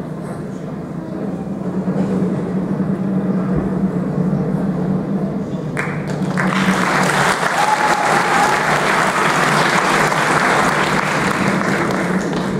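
Audience applauding, breaking out suddenly about halfway through and then going on steadily, over a low steady hum.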